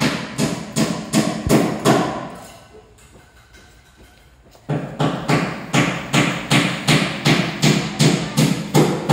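Steady hammer blows on a building site, about three a second; they stop for about two seconds midway, then resume at the same pace.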